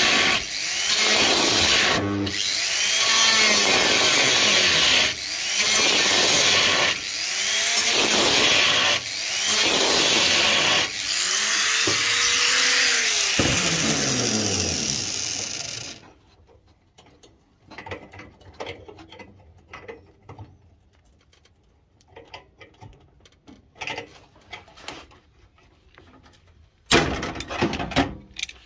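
Angle grinder with a thin cutting disc cutting through the sheet-steel floor of a car's foot well, in passes of a few seconds with short breaks as the motor drops and picks up speed. The cutting stops a little over halfway through, leaving faint clinks and handling noises, then a brief louder burst near the end.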